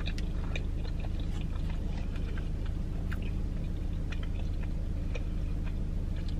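A person chewing a breadstick dipped in marinara sauce, close to the microphone: scattered small wet mouth clicks over a steady low hum.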